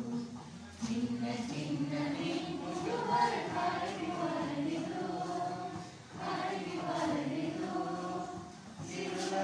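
A group of voices singing a Tamil children's song about a little boat, phrase by phrase with short pauses between.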